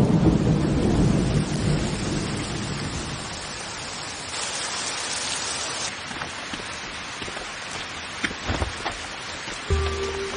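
Steady rain falling on pavement, briefly heavier about four seconds in, with a low rumble of thunder dying away over the first couple of seconds. Music comes in near the end.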